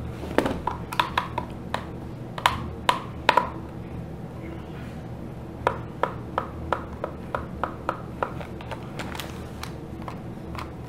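Small, sharp plastic clicks and taps from taking apart a TI-83 Plus graphing calculator: a precision screwdriver working the tiny case screws and the plastic case knocking against the table as it is turned over. The clicks come irregularly, with a quicker run of about three a second past the middle.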